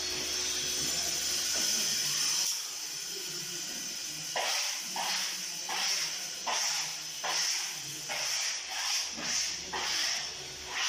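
Wallpaper being smoothed onto a wall: a steady hiss, then from about four seconds in a run of short rubbing swishes, about one and a half a second, as the paper is pressed and wiped flat.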